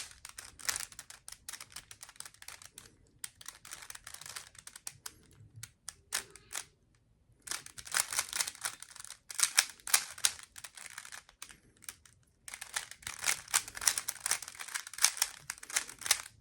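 Plastic Rubik's Cube layers being turned quickly by hand: fast runs of clicking and clacking, broken by two short pauses about seven and twelve seconds in.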